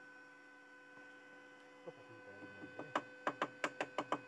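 A hammer tapping steel in a quick run of about seven or eight sharp metallic knocks, beginning about three seconds in, over a steady electrical hum.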